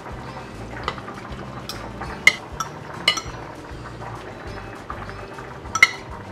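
Metal utensil clinking against a nonstick wok a few times, sharp separate clinks about a second in, twice around two to three seconds, and once near the end, while chicken thighs go into the boiling sauce. Background music runs underneath.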